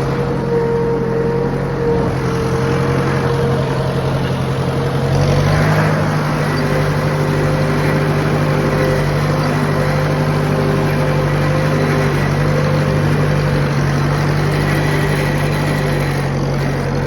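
Tractor engine running steadily under load while towing farm equipment, its note stepping up a little about five seconds in as the engine speeds up.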